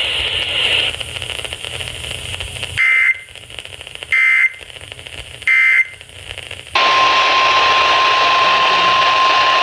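NOAA Weather Radio receiver: radio hiss, then three short screeching bursts of SAME digital alert data about a second and a half apart. About seven seconds in, the steady 1050 Hz weather radio warning alarm tone starts over the hiss, announcing a new warning.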